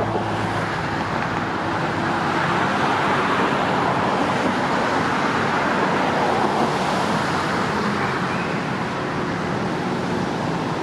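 Steady road traffic noise with a faint low hum under it, swelling a little in the middle and easing near the end.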